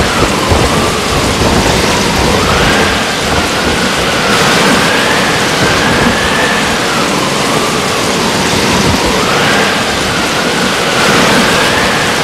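Hurricane wind and driving rain: a loud, steady rush of noise, with a thin whistle of wind that rises and falls every few seconds.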